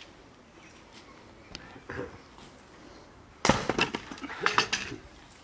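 Firewood being split with an axe: a sharp crack about three and a half seconds in, followed by a quick run of clattering knocks as the wood gives and the pieces fall.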